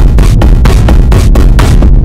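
Loud techno beat played from the Drum Pads 24 pad app: a heavy, continuous bass under sharp, fast percussion hits at about six or seven a second.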